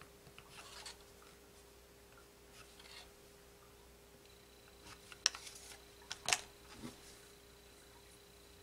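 Tailor's chalk drawn along a ruler on rayon fabric: faint scratchy strokes, then a few sharp clicks a little past halfway.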